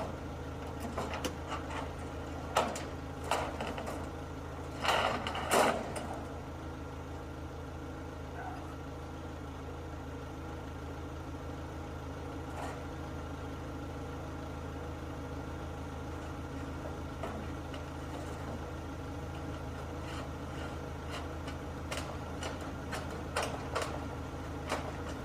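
An engine idling steadily under scattered knocks and bangs, the loudest a few seconds in and more near the end.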